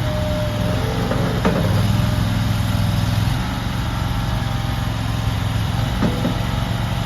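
Gas engine of a small skid steer loader running steadily, briefly louder for a couple of seconds about a second and a half in, with a couple of light knocks.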